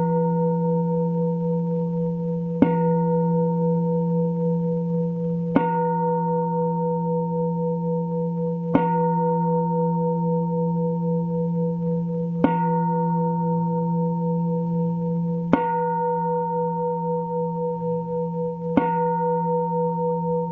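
Buddhist bowl bell struck six times, about every three seconds, each strike ringing on in a steady tone until the next.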